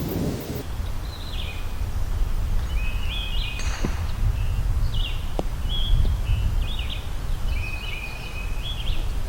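Wind buffeting the microphone as a steady low rumble, with a bird calling in short repeated chirps over it.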